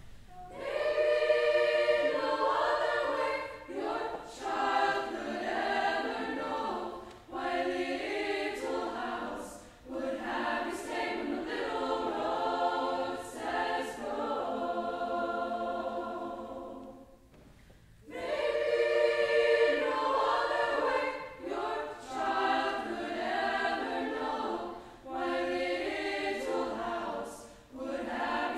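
High school girls' choir singing in phrases, with a short break in the singing a little past halfway.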